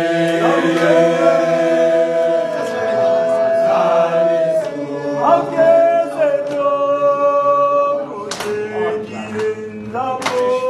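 A group of men singing a gwijo-style team song a cappella in harmony, holding long notes and moving between chords together. A few sharp hits cut through the singing near the end.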